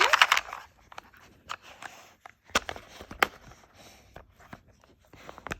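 Dog chewing and pawing at a toy: irregular clicks, knocks and scrapes, with a dense crinkly rattle at the start and two sharper knocks about halfway through.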